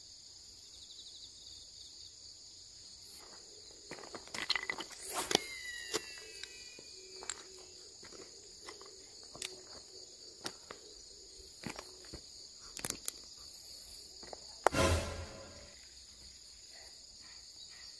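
Steady high-pitched chorus of insects, with scattered clicks and handling noises from a fishing rod and reel. About five seconds in comes a cast with a whirr that falls in pitch, and near fifteen seconds there is a dull bump.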